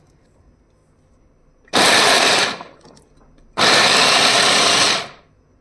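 Inalsa Bullet 400-watt electric mini chopper pulsed twice as it chops carrot pieces: its motor runs for about a second from near two seconds in, then again for about a second and a half, each run trailing off as it stops.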